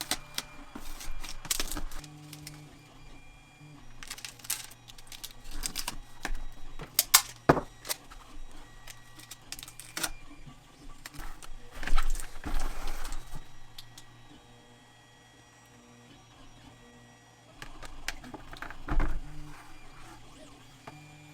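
Irregular clicks, knocks and clatter of hard parts being handled, in clusters with a quieter stretch in the second half. A low steady hum comes in briefly about two seconds in and again near the end.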